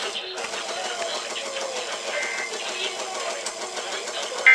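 FM radio receiving a weak signal: a steady hiss with a faint voice beneath it. Right at the end the steady two-tone data burst of an Emergency Alert System header begins, much louder than the hiss.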